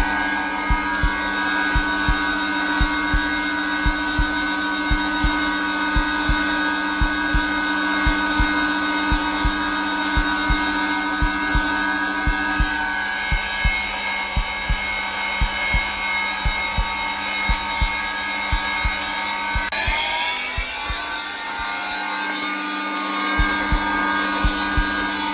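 Zelmer vacuum cleaner motor running steadily at its lowest setting, a continuous whining hum. A heartbeat sound thumps at a regular pace underneath it. About twenty seconds in, the motor's whine glides upward in pitch.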